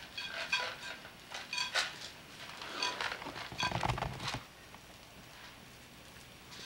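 A toddler making a string of short, high-pitched squeals and babbles, a few a second. About four seconds in there is a brief, muffled clatter of handling noise, then it falls quiet.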